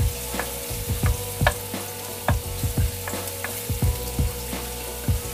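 Chopped garlic and onion sizzling as they sauté in a nonstick frying pan, with a wooden spatula stirring and knocking against the pan in irregular strokes about twice a second.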